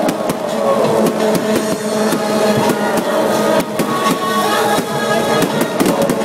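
Aerial fireworks crackling and popping in quick, irregular succession overhead, over loud music with steady held tones.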